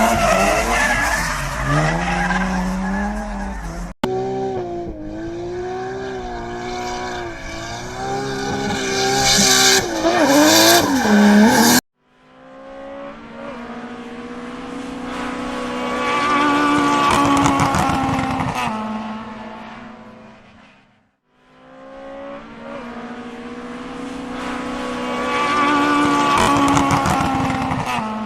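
Racing car engines in a string of cut-together clips: first an engine revving with its pitch climbing and dropping through gear changes, then two cars passing by, each swelling to loud and fading away.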